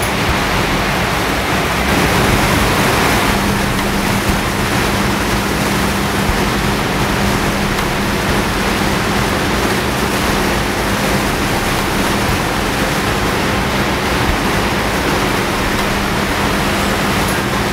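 Steady rush of river water pouring over a spillway, a loud, even roar of falling and churning water.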